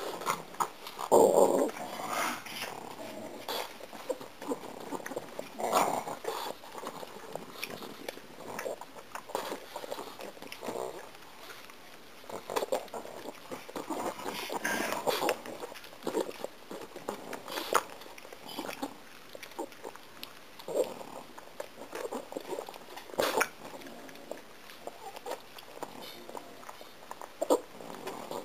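Pug chewing and working its mouth on a piece of gum, with irregular smacks and clicks, the loudest about a second and a half in and again near the end.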